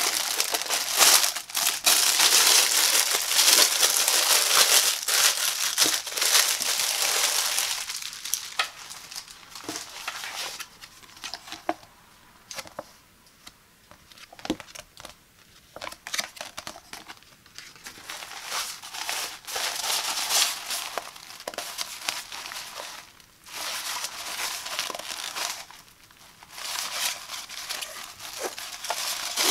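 Crinkling of a thin clear plastic bag being handled and opened, loudest for the first eight seconds or so. Then come quieter rustles and light clicks as a paper card is handled, and later more rustling of a silver nylon storage pouch as its drawstring is pulled.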